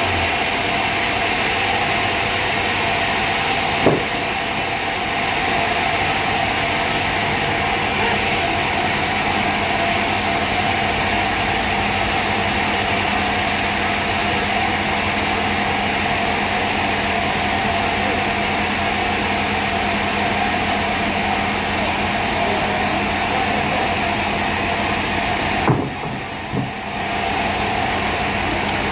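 Sawmill machinery running steadily: a continuous mechanical drone with a hiss. A sharp knock comes about four seconds in, and another near the end, where the sound briefly drops away and comes back.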